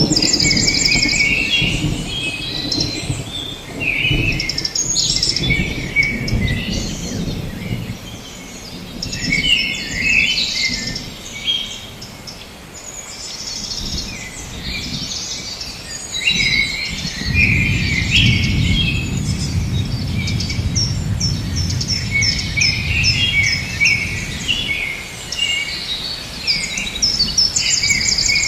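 Forest ambience: several birds chirping and trilling over one another, over a low rumble that eases off in the middle and swells again past the halfway point.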